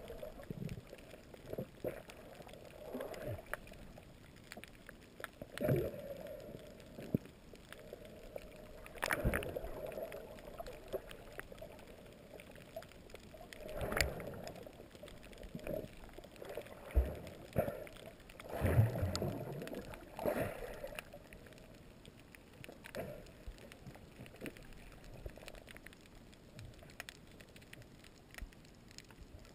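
Water swishing and gurgling, heard muffled through an action camera's waterproof housing underwater, in irregular swells a few seconds apart with an occasional light knock.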